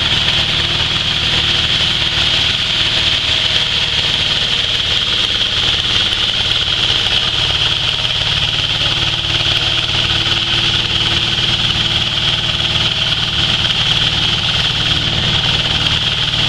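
Grain grinding mill for livestock feed running steadily as grain is fed into its hopper: a loud, constant mechanical drone with a steady high hiss over it.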